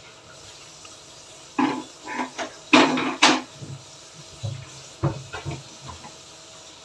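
Kitchenware clattering and knocking off-camera in two short bursts, the first about a second and a half in and the second about four and a half seconds in, over a steady low hiss from the adobo sauce simmering in the wok.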